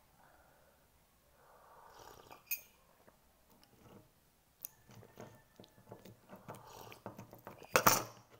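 A cat eating: irregular chewing clicks that grow denser in the second half, then one loud brushing thump near the end.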